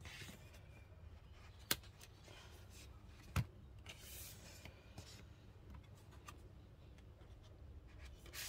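Card and paper pages of a handmade concertina book being turned and folded shut: soft paper rustling, with two sharp taps about a second and a half apart.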